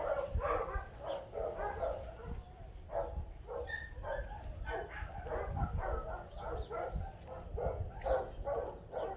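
A dog barking over and over in a steady run, about two or three barks a second.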